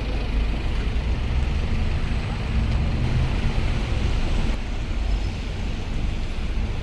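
Steady low rumble and road noise of a vehicle in motion.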